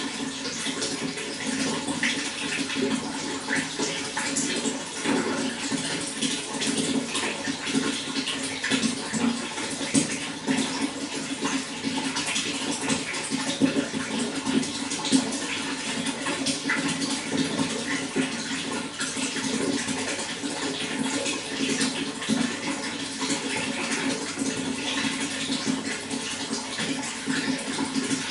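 Running water, a steady rush full of small splashes, holding one level throughout.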